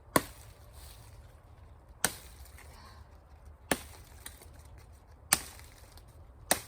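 Machete chopping branches off a felled tree trunk: five sharp strikes, about one every one and a half to two seconds.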